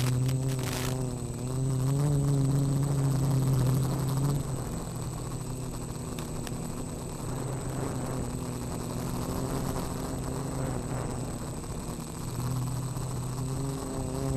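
Quadcopter's four Turnigy Aerodrive SK3 brushless motors and 8045 propellers humming in flight, heard through the onboard camera's microphone. The hum swells and eases with throttle: louder for the first few seconds and again near the end, softer in between.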